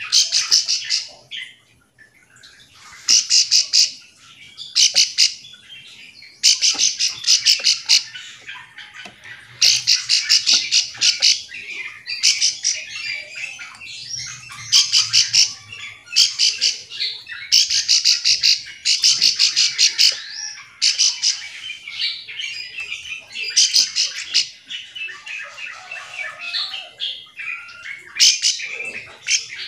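A ciblek sawah prinia calling: repeated bursts of rapid, sharp ticking notes, each burst about a second long, coming every second or two. This is its call to other birds, the kind that sets others answering back.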